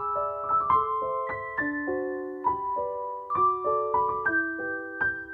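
Background piano music: a gentle melody of notes struck a few times a second, each ringing on and fading.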